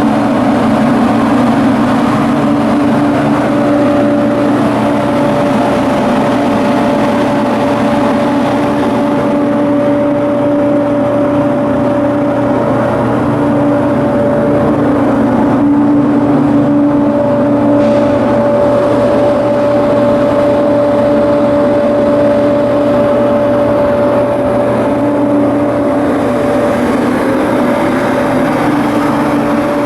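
A ship's diesel engine running at a steady speed: a loud, even drone with a steady hum note that does not change.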